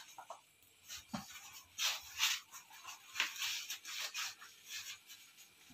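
Teak leaves rustling and crinkling as they are folded by hand around a dumpling of jackfruit batter, an uneven run of short, dry rustles.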